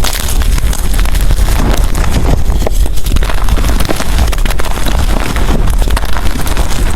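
Gym chalk blocks being crushed and crumbled by hand, a dense, continuous run of small crunches and crackles over a steady low rumble.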